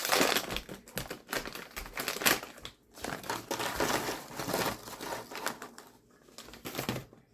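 Crinkling and crackling of food packaging being handled, a rapid run of small crackles that thins out near the end.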